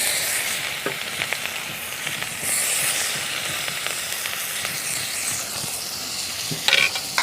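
Chopped onion sizzling steadily as it fries in hot oil in a kadai. A few light clicks sound over it, and a short clatter near the end.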